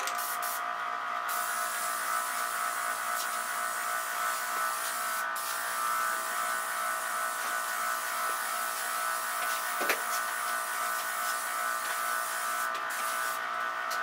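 Aerosol spray can hissing in sweeping passes, cutting out briefly about a second in and again near the end, over a steady buzzing hum. A single light click about ten seconds in.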